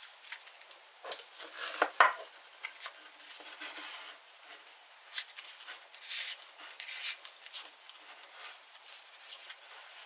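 Leather handling noise: a leather belt rubbing and scraping as it is slid through the belt loop of a leather knife sheath, with scattered small clicks and one sharp click about two seconds in.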